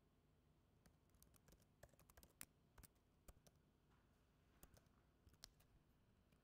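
Faint, irregular keystrokes on a computer keyboard while code is typed, a scattering of light taps from about a second in until shortly before the end.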